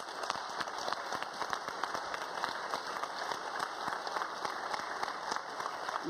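Audience applauding steadily, many hands clapping in a lecture hall.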